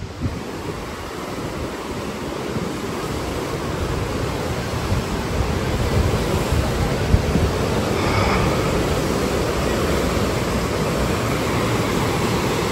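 Fast, turbid Kunhar River rushing over rapids: a steady noise of running water, growing louder over the first few seconds as the bank comes closer, then holding steady.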